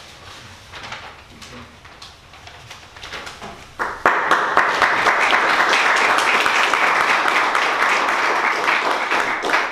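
Audience applauding at the end of a lecture, breaking out suddenly about four seconds in after a few seconds of faint room noise.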